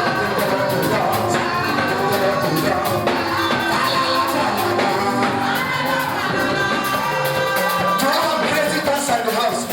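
Live gospel praise music: singing over a band with drums and percussion.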